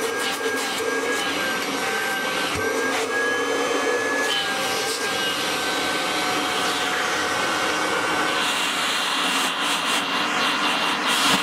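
Kirby Heritage 2 vacuum cleaner running with its hose on for a suction test: a steady motor whine with air rushing through the hose, and a light tap as a brush attachment is fitted about two and a half seconds in. Near the end the whine fades under a louder, higher hiss of air at the hose opening.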